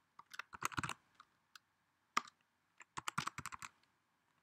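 Computer keyboard typing in short runs of keystrokes: a quick run in the first second, a single keystroke just after two seconds, and another run around three seconds in.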